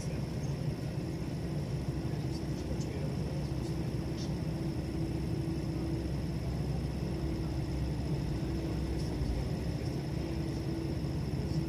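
Steady low mechanical hum and rumble with a wavering mid tone and a faint, steady high whine above it; the level holds even, with no train passing.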